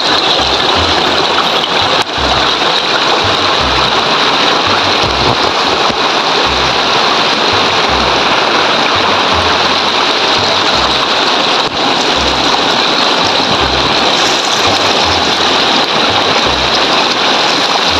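Shallow mountain stream rushing over boulders in white-water rapids: a loud, steady rush of water.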